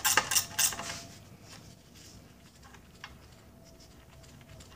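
Speed wrench ratcheting an outboard's lower-unit bolt out, its pawl clicking about four times a second for the first second. The ratcheting then stops as the bolt comes free, leaving a few faint metallic clinks.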